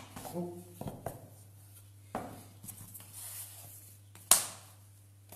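Handling sounds of pastry-making on a wooden board: a few light knocks and taps, then one sharp, loud knock about four seconds in. A steady low hum runs underneath.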